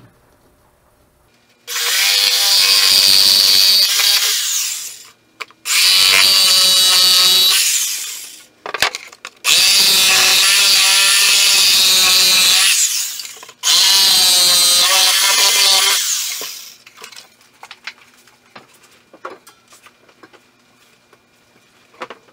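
Corded jigsaw cutting in four runs of a few seconds each, trimming the corners off a speaker-tray panel; between and after the runs only small handling clicks.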